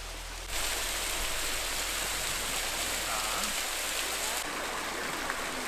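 Small waterfall spilling in thin streams over a mossy rock ledge: a steady rushing hiss of falling water that starts abruptly about half a second in.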